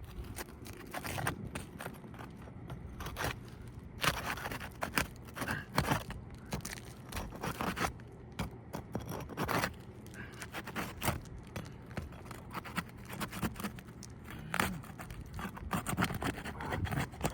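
Asphalt shingles being lifted and pried free along their sealed laminate strip: irregular scraping with short crackles and snaps as the sealant bond breaks. This is a repairability test on an old roof, checking whether the shingles can be lifted without cracking.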